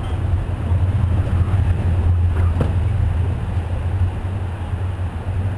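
Heavy wooden skatepark fun box being pushed over the asphalt on wooden rollers, a steady low rumble that swells in the middle, with a single knock about two and a half seconds in.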